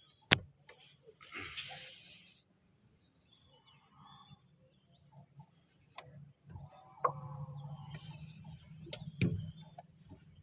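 Insects chirping in short high chirps, about two a second, with a few sharp knocks and a low hum in the latter part.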